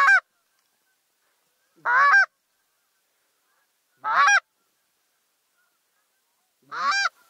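Four loud single goose honks, about two seconds apart, the last one coming a little later; each honk is short and rises then falls in pitch, with near silence between them.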